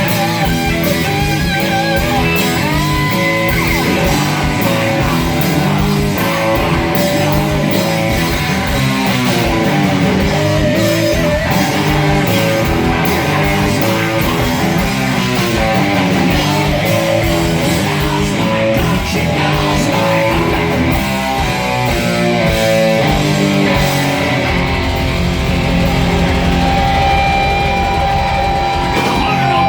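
Loud hard-rock music: electric guitar played over a steady, driving drum beat.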